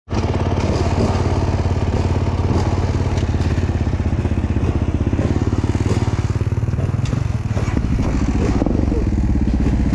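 Suzuki DR 650's single-cylinder four-stroke engine running steadily at low revs, an even rapid pulse, with a brief dip and shift in the note about seven seconds in.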